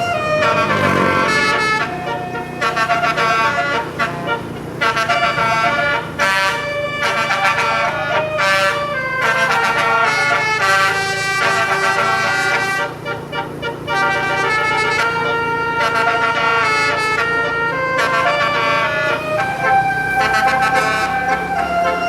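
Bus telolet horn playing a tune: a multi-tone air-horn set sounding chords of held notes that step from pitch to pitch, broken by short gaps. A low steady hum runs underneath.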